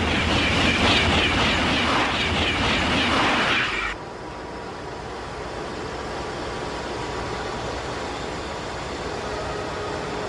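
A train of freight wagons runs past close by, loud rolling and rail noise that cuts off abruptly about four seconds in. After that comes a quieter steady hum with a faint steady tone.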